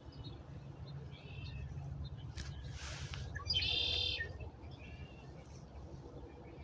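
Birdsong: a loud red-winged blackbird song about three and a half seconds in, among softer chirps from other songbirds, over a steady low rumble.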